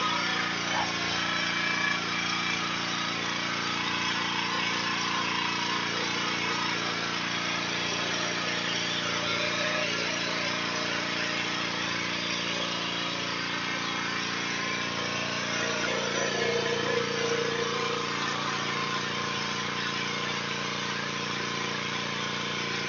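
Pressure washer's engine running steadily, with the hiss of its high-pressure water jet spraying a metal-sided wall.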